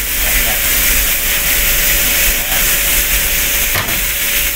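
Steady, loud hiss of galley kitchen noise, with a faint steady hum underneath and a light knock near the end.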